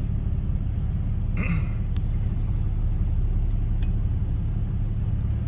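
Dodge Ram 2500's Cummins straight-six turbo-diesel and road noise from the moving truck, a steady low rumble at an even level.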